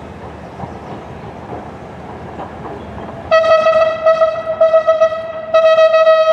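Horn of BB 64047, a BB 63500-series diesel locomotive, sounding a single steady high note in two blasts: the first starts about three seconds in and lasts about two seconds, the second follows after a brief break.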